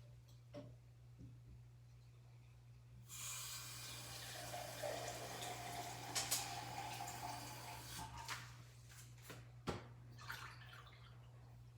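Water running into a single-serve coffee maker's water tank, starting suddenly about three seconds in and stopping about five seconds later as the tank reaches its max fill line. A sharp click follows near the end.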